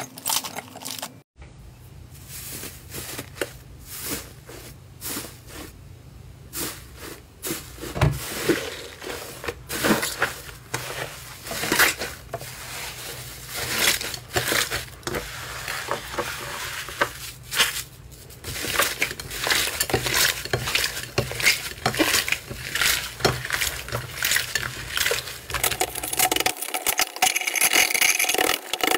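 Slime being kneaded, squeezed and pressed by hand against a plate, giving a dense stream of short, irregular sticky clicks and pops.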